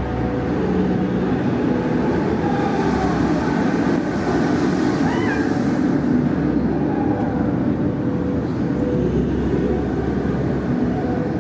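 Busy theme-park ambience: a steady, dense din with several short squealing glides that rise and fall in pitch, the clearest about halfway through.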